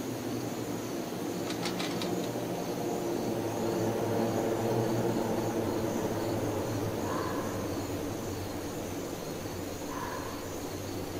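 Low, steady ambient drone of background music: several held tones over a soft hiss, with a few faint high ticks about two seconds in and two soft short tones later on.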